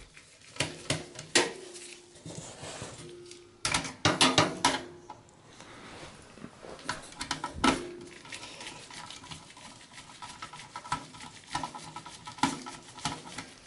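Screwdriver backing out the screws of a CPU heatsink and fan in a steel PC case: irregular clicks, scrapes and light metallic clinks, a few with a short ring.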